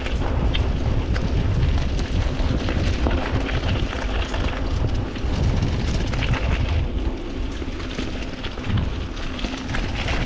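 Mountain bike descending a rocky downhill trail at speed: heavy wind rumble on the microphone over tyres rolling on dirt and rock, with scattered clicks and rattles from the bike.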